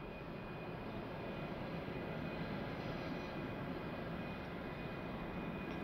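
Airbus A330-200 jet engines running at taxi power as the airliner rolls along the taxiway: a steady rumble with a faint, even whine above it, swelling slightly over the first couple of seconds.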